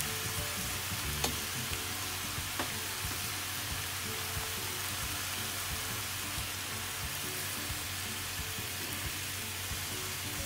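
Chicken pieces sizzling as they sauté in a wide pan, stirred with a wooden spoon, with a couple of sharp clicks against the pan.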